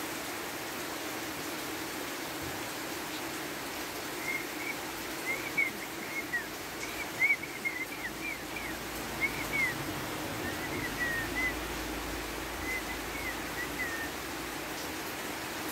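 Steady rain hiss, with a run of short, high chirps from about four seconds in, lasting about ten seconds.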